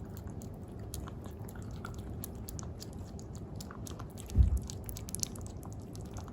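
A pet licking and smacking at a Churu lickable paste treat, a run of quick wet clicks, with a dull low bump about four seconds in.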